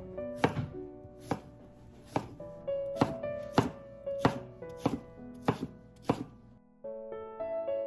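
Kitchen knife chopping cucumber into thin strips on a wooden cutting board: about ten unhurried knife strikes, stopping near the end. Soft piano music plays throughout.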